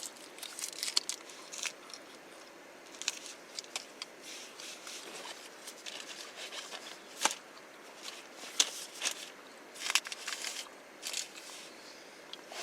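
Plastic snack wrappers crinkling and crackling as they are handled, in short scattered bursts with a few sharp snaps.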